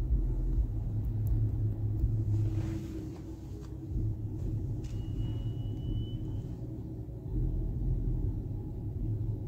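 Low, steady rumble of a vehicle idling, heard from inside its cabin while stopped at a traffic light, with cross traffic passing outside. A short high tone sounds about five seconds in.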